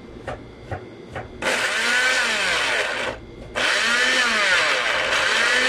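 Moulinex countertop blender: a few clicks at the switch, then the motor starts about a second and a half in, stops briefly near the three-second mark and starts again. Its pitch rises and falls as the blades work through chunks of carrot, banana and watermelon.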